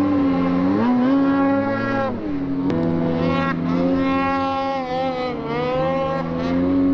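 Snowmobile engine running under throttle, its pitch rising and falling several times as the rider eases off and gets back on the gas; the sound cuts off suddenly near the end.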